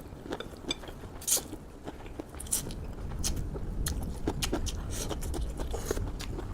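A person biting and chewing food close to the microphone: irregular crisp crunches and small wet clicks.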